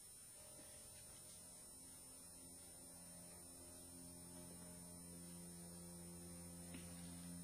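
Quiet dramatic underscore: low sustained notes entering one after another and slowly swelling.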